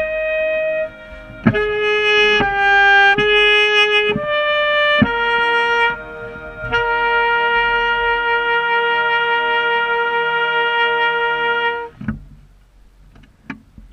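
Saxophone played right at the microphone, with a buzzy tone from the close mic position: a few short notes at changing pitch, then one long held note that cuts off about twelve seconds in.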